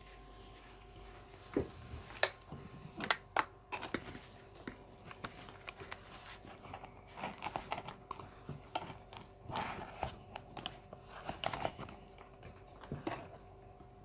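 Irregular clicks, rustles and crinkling from hands fitting Velcro straps to hold a phone onto a small drone, with a faint steady hum underneath.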